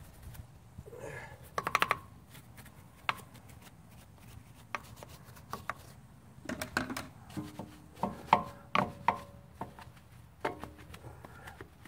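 A brush scrubbing a car's alloy wheel, its bristles and handle knocking against the spokes in irregular scratchy taps and clicks. From about seven seconds in, short plucked-string notes sound alongside.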